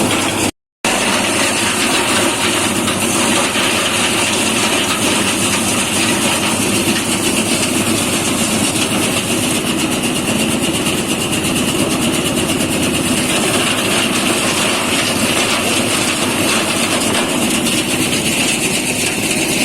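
Edamame threshing machine running steadily, a loud, even mechanical noise with no change in speed. It cuts out completely for a moment less than a second in.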